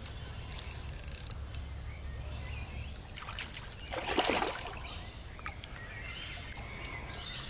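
Birds chirping over a steady low outdoor rumble, with one brief splash about four seconds in from a small hooked carp at the water's surface.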